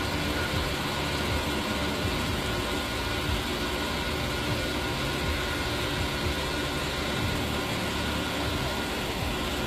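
Fuel dispenser at a petrol pump running steadily with an even mechanical hum. The filmer says it should have stopped once the hand was taken off.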